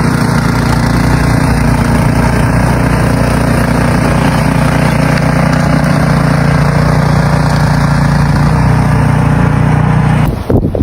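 An engine running steadily at a constant pace, cutting off abruptly near the end.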